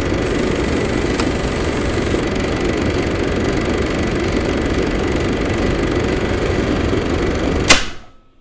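Film projector sound effect: steady mechanical running, ending in a sharp hit near the end and fading out quickly.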